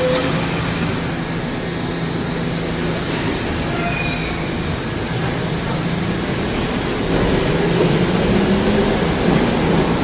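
New York City subway train running through the station, a steady rumble with a few brief wheel squeals about four seconds in, growing louder from about seven seconds.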